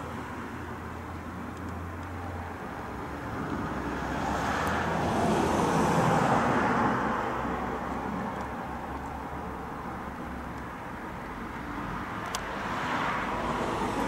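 Passing traffic: a vehicle swells to its loudest about six seconds in and fades away, and another approaches near the end.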